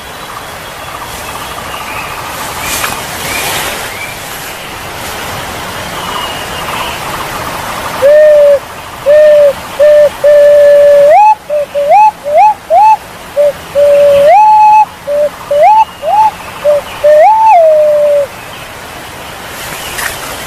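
Punai walik jawa pigeon calls. For the first eight seconds there is only a steady hiss with faint high whistles. Then a loud run of whistled notes begins: low, level whistles and short whistles that slide upward, repeated again and again, with a few longer notes that rise and hold before dropping back.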